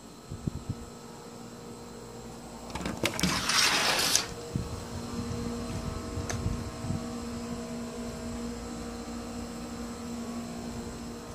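Handling noise as a glass jar is moved about and set down: a few soft knocks, then a rustling hiss lasting about a second and a half, followed by a steady low hum.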